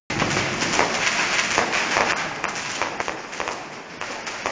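Fireworks crackling and popping in a dense, continuous rattle of sharp cracks, easing somewhat after about three seconds.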